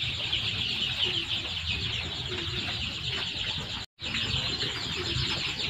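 A crowd of about three-week-old kampung chicks peeping continuously, many thin chirps overlapping at once. The sound cuts out for an instant about four seconds in.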